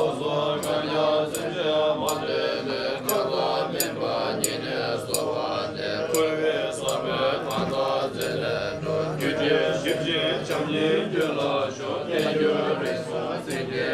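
Tibetan Buddhist monks chanting a puja in unison, a steady droning recitation. A sharp strike cuts in at an even beat, about three every two seconds.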